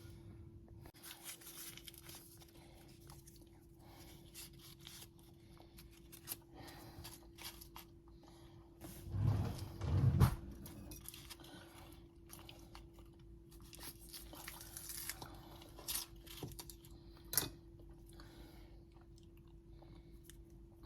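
Rustling and light clicks of sandwich ingredients being handled and assembled on a counter, with two dull thumps about nine and ten seconds in, over a faint steady hum.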